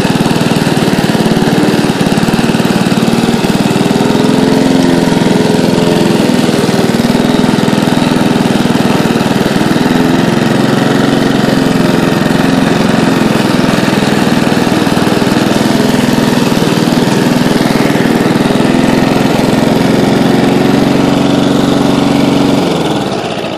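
Toro self-propelled walk-behind lawn mower's single-cylinder gas engine running steadily while cutting grass. Near the end the engine slows and dies away.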